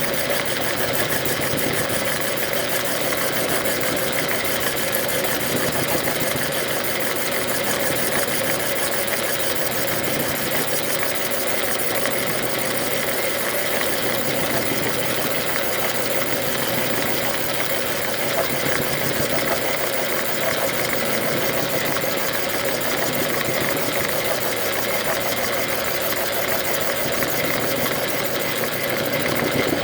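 Logan metal lathe running steadily under power, its motor and drive gearing making an even mechanical hum and whir.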